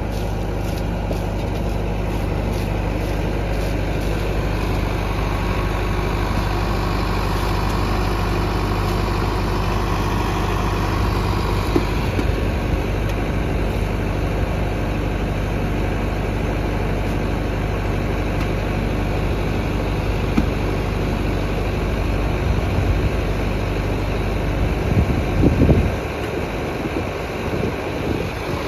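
Tractor diesel engine running steadily under PTO load, driving a clay mixing machine. The clay mixer is the one this Sonalika 750 tractor powers, and it is extruding brick mud. A short burst of louder rumbling noise comes near the end.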